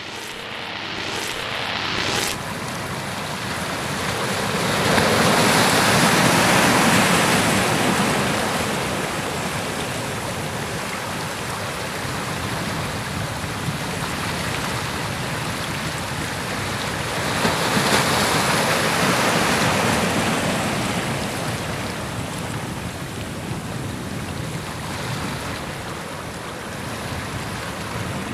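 Sea surf washing against a rocky shore: a steady rush of water that swells louder twice, about five seconds in and again about seventeen seconds in.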